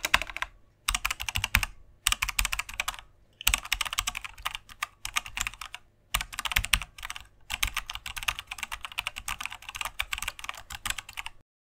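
Keyboard typing sound effect: rapid key clicks in runs of one to four seconds with short pauses between them, stopping suddenly near the end.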